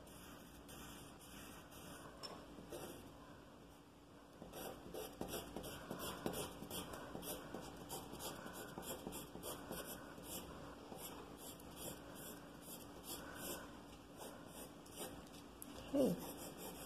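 Pencil scratching on paper in quick, repeated hatching strokes, fainter for the first few seconds and then steadier and louder from about four seconds in. A brief falling tone near the end is the loudest moment.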